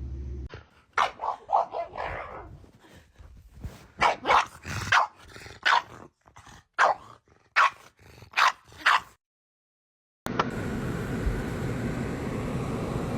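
A dog barking in short, sharp barks, about a dozen over several seconds, some in quick clusters. The barking stops and, after a brief silence, a steady background hum begins.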